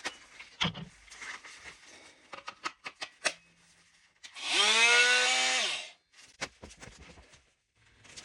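Clicks and rattles of a handheld electric power tool being readied, then its motor is triggered for under two seconds: it spins up, runs at a steady pitch without cutting, and winds down when released.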